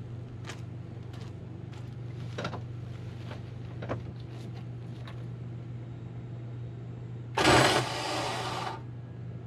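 Footsteps crunching on gravel, then about seven and a half seconds in a harsh, grinding burst of about a second and a half from the John Deere Gator 825i's starter as the key is turned. The engine does not start, the sign of a faulty starter. A steady low hum runs underneath.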